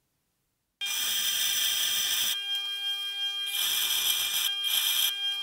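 Bench grinder running with a steady whine as a small steel shaft key, held in locking pliers, is ground down on the wheel to thin it. The grinding hiss cuts in about a second in and comes in three passes, the last one short.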